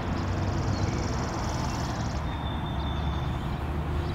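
Steady low hum and hiss of outdoor background noise. For the first couple of seconds it carries a high, finely pulsing buzz, and a faint thin tone comes in later.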